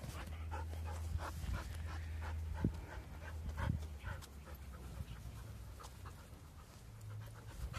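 A dog panting in quick, rhythmic breaths, over a low steady rumble.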